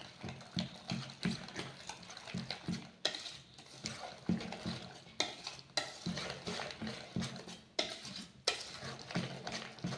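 Wire whisk stirring thick, nut-filled cake batter quickly in a steel bowl: irregular wet strokes, several a second, with light clinks against the bowl.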